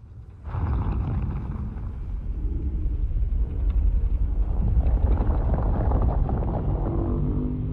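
Legendary Godzilla film sound effect: a deep, rough, bass-heavy creature sound that starts about half a second in and swells, with a pitched tone rising out of it near the end.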